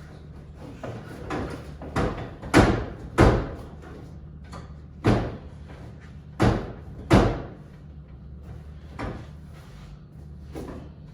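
Series of sharp bangs and knocks with a short ringing tail, six loud ones at uneven spacing and a few lighter ones, as a seat is worked into its mounts in a VW Baja Bug.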